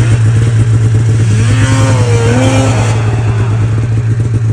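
Snowmobile engine running loud and steady under throttle while it is ridden across snow. A person's shout rises and falls about halfway through.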